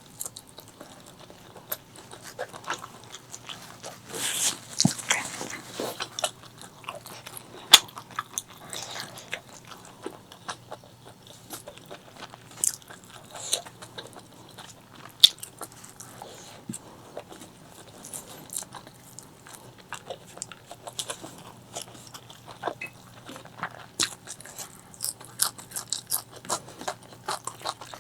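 Close-miked eating sounds of spicy chicken liver, gizzard and white rice: steady chewing and biting made up of many small clicks, with a louder stretch about four seconds in and two sharp, loud clicks.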